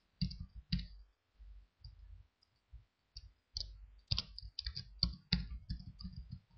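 Computer keyboard being typed on: an irregular run of key clicks, sparse at first, then quicker and denser from about halfway.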